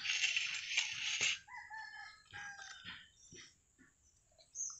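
Chickens calling, a few short pitched calls a second and a half to three seconds in, after a brief rustling noise at the start.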